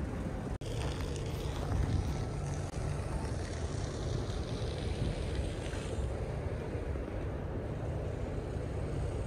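Outdoor city street ambience: a steady low rumble of wind on the microphone and passing traffic. The sound drops out briefly twice, about half a second in and again near three seconds.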